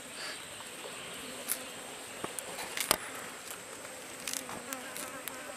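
Insects buzzing, with a steady high drone throughout and a few sharp clicks, the loudest about three seconds in.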